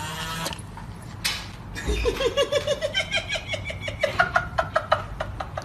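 A voice giving a fast run of short, laugh-like pitched sounds that climb in pitch and grow louder.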